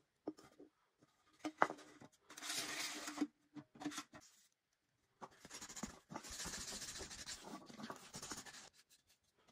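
Aluminium drink cans handled on a wooden tabletop, with a sharp knock about a second and a half in and a short scrape. Then a longer stretch of steady rubbing as the end of a can is sanded by hand with abrasive paper.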